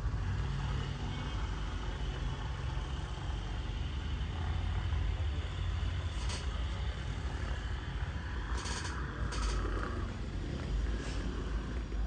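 Street traffic noise: a steady low rumble of passing motor vehicles, with a few brief hisses about six and nine seconds in.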